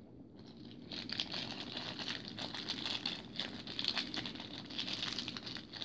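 Crinkling and rustling full of small clicks as hands handle packaging and small plastic model parts. It starts about a second in and stops near the end.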